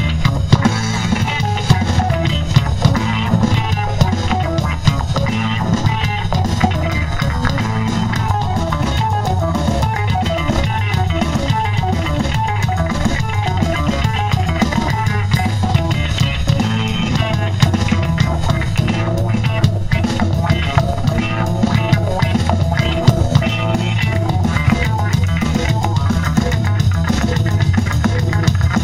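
Funk-fusion band playing live: guitar lines over a drum kit with a steady beat.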